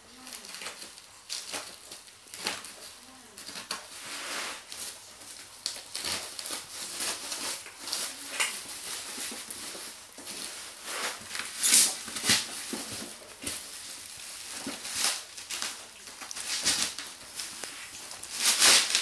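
Black plastic and bubble wrapping crinkling, rustling and tearing as a parcel is unwrapped by hand, in irregular bursts of rustle.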